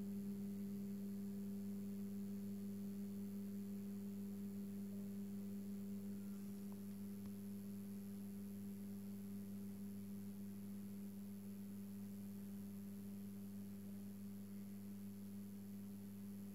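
Steady electrical hum from a running 400 W probe-start metal halide lamp (Osram HQI-T) and its ballast: one low fixed-pitch tone with a few fainter overtones, slowly getting a little quieter.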